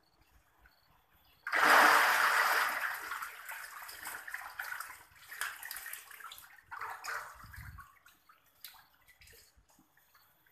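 Water splashing and sloshing: a sudden loud splash about a second and a half in, dying away over several seconds, with a few smaller splashes after it.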